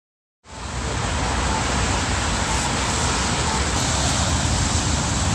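Steady road traffic noise with a low rumble, starting abruptly about half a second in after a moment of silence.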